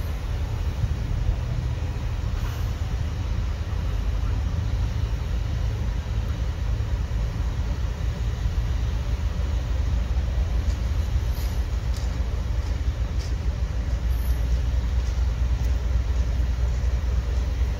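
Mobile crane's diesel engine running steadily under load as it holds and lowers a suspended snowplow, a deep, even rumble, with a few faint clicks and knocks around the middle.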